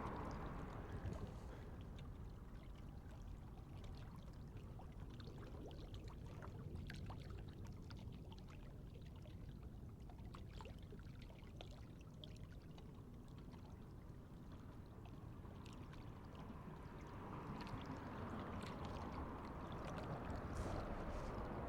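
Faint lake water lapping and trickling, over a steady low wind rumble, with a soft rushing sound that builds over the last few seconds.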